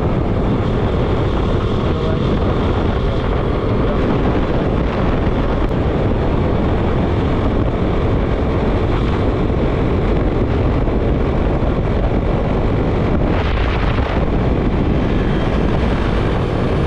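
Wind buffeting the microphone over the steady drone of a motorcycle engine, ridden at a constant speed.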